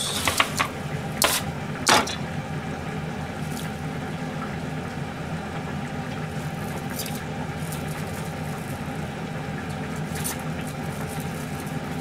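Cling wrap pulled and torn off its box, with a few sharp crackles in the first two seconds, then soft rustling of the plastic film as sandwiches are wrapped, over a steady low hum.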